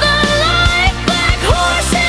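Song with a steady drum beat under a lead melody that slides up and down in pitch.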